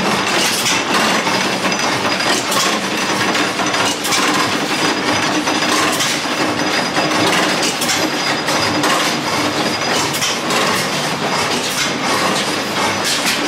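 Small antique stationary gas engines running, a steady dense clatter of overlapping clicks and knocks from their valve gear and flywheels.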